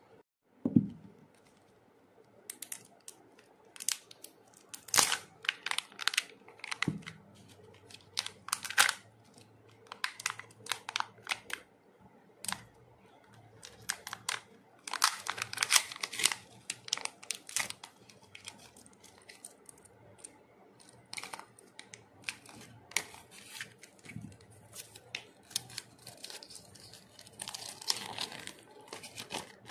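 Hands handling Kinder Joy plastic packaging: irregular sharp clicks and crinkling as the orange toy capsule is worked open. Near the end a folded paper leaflet rustles as it is unfolded.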